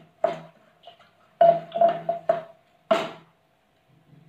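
Wooden mathni stirring thick saag in an aluminium pressure cooker, knocking against the pot about six times, loudest about one and a half and three seconds in, with a faint steady hum underneath.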